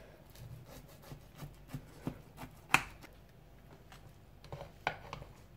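Knife cutting a baked lasagna into portions: scattered scrapes and knocks as the blade goes through the cheese crust and meets the bottom of the baking dish, with one sharper tap a little under three seconds in and another near the end.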